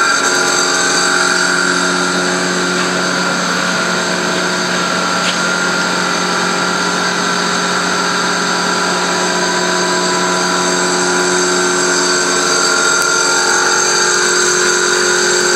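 Sachman X12 CNC milling machine, retrofitted with DC servo drives, running a roughing pass in AISI 304 stainless steel. It makes a steady whine of several fixed tones over the noise of the cut, with a slight change in the tones near the end.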